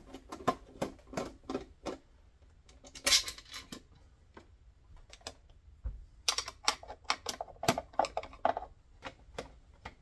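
A screwdriver backing screws out of the plastic housing of a GE Dash 3000 patient monitor: a run of small, irregular clicks and ticks, with a brief louder scraping noise about three seconds in and a quicker cluster of clicks a little past the middle.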